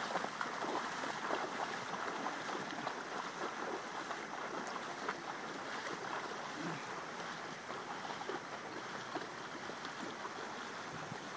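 Splashing of feet and paws running and wading through shallow river water, over the steady rush of the flowing river. The splashing is busiest in the first couple of seconds.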